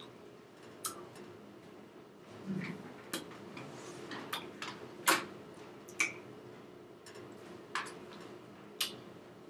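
Irregular sharp clicks and soft taps from a person signing, with hands striking each other and the jacket and the lips and tongue clicking, about ten in all. The loudest comes about five seconds in. A faint steady low hum lies underneath.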